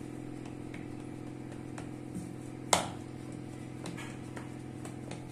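A stuffed ball of soft paratha dough being pressed flat by hand on a rolling board, with a few light taps and one sharp click a little under three seconds in, over a steady low hum.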